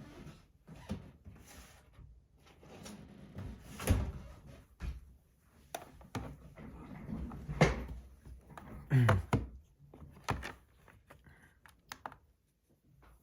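Rummaging to fetch a scale: objects shuffled and knocked about, with a few sharp thunks, the loudest about four, seven and a half and nine seconds in.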